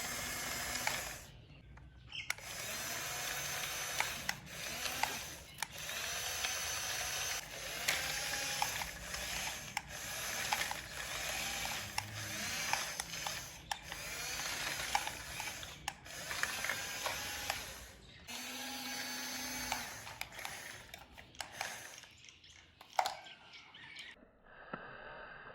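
Small electric gear motors of a toy RC excavator whirring in repeated bursts of a second or two, the whine rising and falling in pitch as the arm and tracks move.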